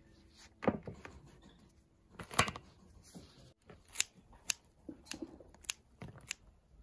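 Crisp sunflower microgreen stems being cut through near the base with a blade: a run of about seven sharp snips, the two loudest in the first half.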